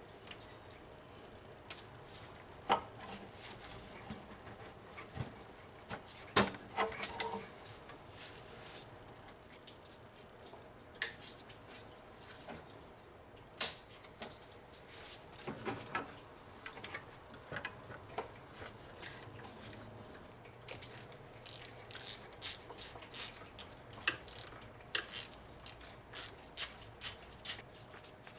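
Hand tools and metal parts clicking and clinking during work in an engine bay: an irregular string of sharp clicks that comes thicker and faster in the last several seconds, over a faint steady hum.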